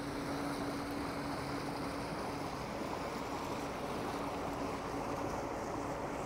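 Motor boat engine running with a steady low hum over a steady background hiss; the hum weakens about halfway through.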